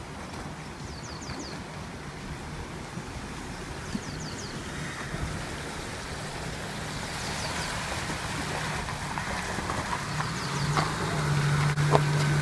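Maruti Suzuki Gypsy's engine running steadily and getting louder toward the end, over a constant rushing noise. High quick chirps come in little groups of three or four about every three seconds.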